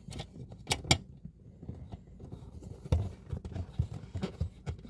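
Scattered sharp clicks and knocks of things being handled, with the loudest pair about a second in and another near the three-second mark, over a faint low rumble.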